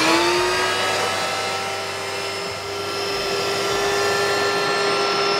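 Wet/dry shop vacuum motor reaching full speed in the first half-second with a rising whine, then running steadily while its hose draws water out of a pool skimmer line.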